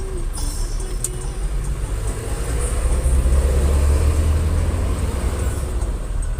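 Low rumble of a moving road vehicle's engine and tyres, swelling to its loudest a few seconds in and then easing slightly.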